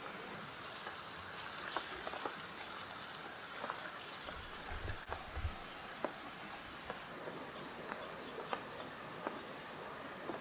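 Steady rain falling, with scattered drops ticking sharply onto nearby surfaces. A few low thumps come about halfway through.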